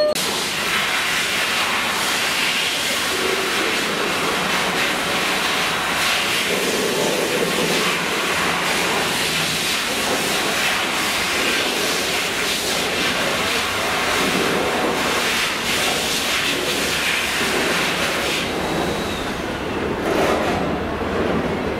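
Loaded freight wagons carrying steel plate and steel coil rolling past: a steady rumble and rattle of steel wheels on the rails, with repeated clatter as the wheels cross rail joints.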